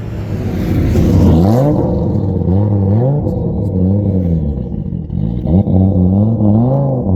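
Race car engine revving in repeated blips, its pitch climbing and dropping about once a second, with one sharp crack about five and a half seconds in.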